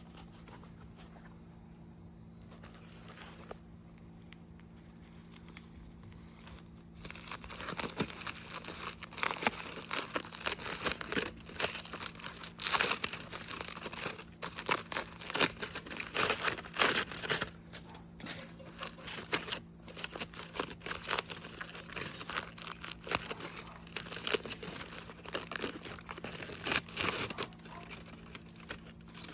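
Wrapping crinkling and crumpling as it is handled, beginning about seven seconds in as a dense run of crisp rustles. A low steady hum runs underneath.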